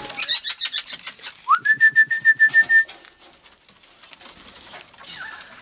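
Parrots calling in a quick run of high chirps, then a long whistle that rises and holds one steady pitch for just over a second.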